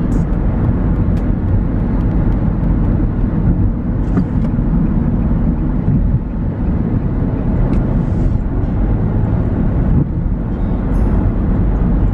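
Road and engine noise heard from inside a moving car's cabin: a steady low rumble.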